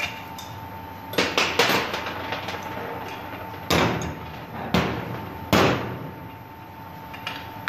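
Sharp metallic clanks of a steel wrench and nuts against the bolted steel flanges of a pump's rubber expansion joint as the flange bolts are fitted: three quick knocks a little over a second in, then three more about a second apart.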